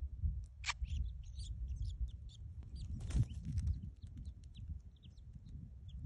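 Grey shrike nestlings begging at the nest: many short, high chirps scattered throughout, with one louder, sharper call about two-thirds of a second in, over a steady low rumble.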